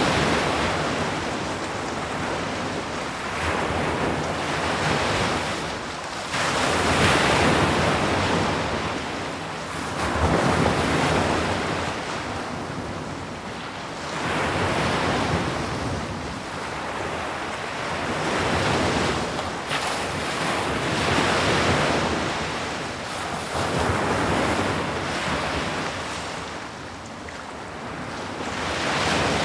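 Sea waves breaking and washing up a shore, the surf swelling and ebbing in a new surge every few seconds.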